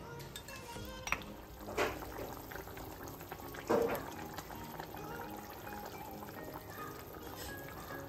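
Fish curry bubbling in a pot as pieces of fish are dropped in, with short splashes about one, two and four seconds in; the one near four seconds is the loudest. Background music plays throughout.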